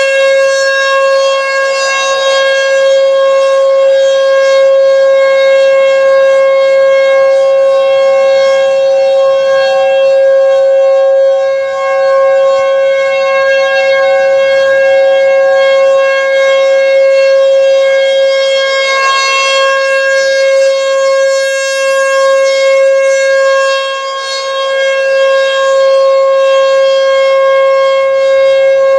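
American Signal Tempest T-128 rotating outdoor warning siren sounding a steady tone at one pitch during a siren test, with brief dips in loudness now and then. A fainter second siren tone sounds alongside it through the middle.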